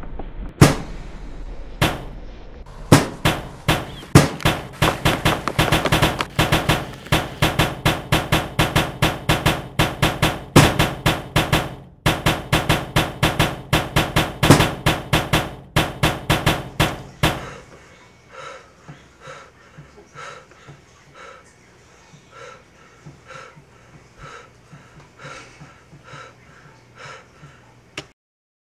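Percussive soundtrack music: a fast, steady drum beat of about four hits a second, with a brief break partway through. The loud beat cuts off suddenly about two-thirds of the way in, leaving a much quieter, sparser rhythm.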